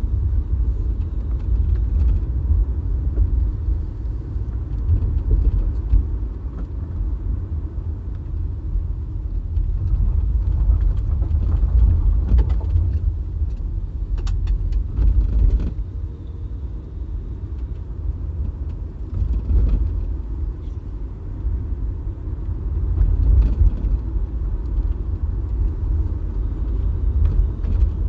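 A car being driven, heard from inside the cabin: a steady low rumble of road and engine noise that swells and eases with the road, with a few light knocks about halfway through.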